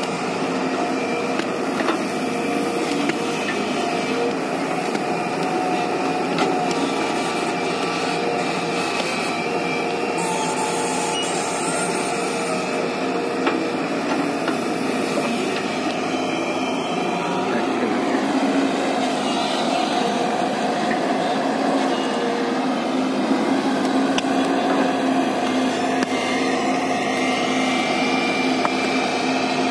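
JCB tracked excavator's diesel engine running steadily under load while the bucket digs and lifts sand, a constant mechanical hum that grows a little louder about two-thirds through.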